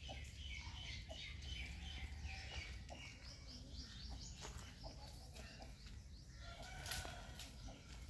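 Backyard chickens and roosters clucking and calling faintly, over a quick run of high, short bird chirps in the first few seconds. A steady low rumble runs underneath, and there is a sharp click about seven seconds in.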